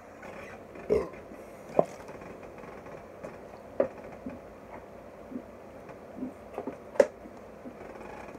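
Scattered short sounds from a person chugging soda water: brief throaty gulps and sharp clicks a second or more apart. The loudest come about a second in, just under two seconds in, and about seven seconds in.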